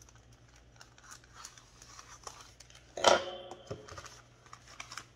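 Thin plastic mailer bag rustling and being snipped with small metal scissors, then about three seconds in a sharp metallic clank that rings briefly as the scissors are put down on the table, followed by more rustling of the bag.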